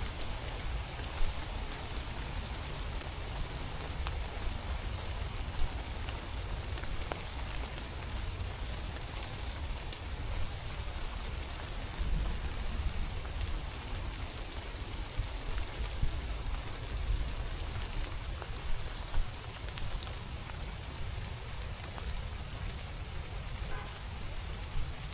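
Steady rain falling on a forest, an even hiss with scattered individual drop ticks, over a constant low rumble. Two sharper knocks stand out, about a second in and near six seconds.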